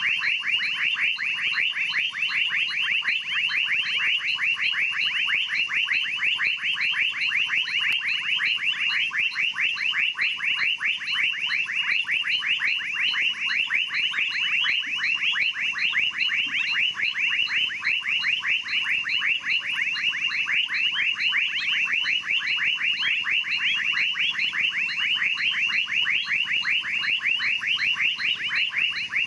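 Dense night chorus of animals in the Amazon rainforest: short chirping calls repeated rapidly, about four a second, going on without a break, with a fainter steady pulsing trill higher up.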